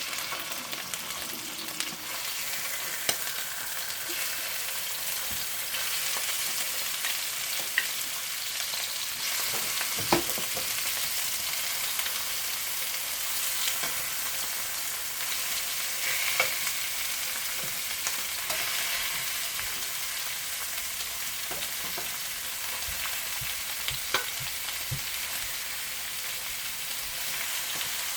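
Chicken wings sizzling steadily in a frying pan, with occasional sharp clicks as they are stirred, the loudest about ten seconds in.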